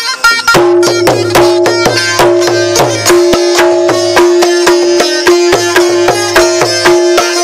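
Long-necked plucked lute played fast: a quick run of plucked notes over a steady drone note that comes in about half a second in, with low bass notes under it.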